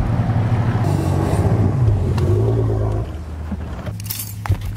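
Bass boat's outboard motor running at low speed as the boat is brought up to its trailer, then throttled back sharply about three seconds in. A few light clicks and knocks follow near the end.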